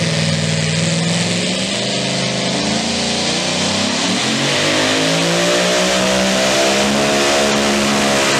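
Supercharged engine of a super modified two-wheel-drive pulling truck running loud and steady, then revving up about four seconds in and holding at higher revs.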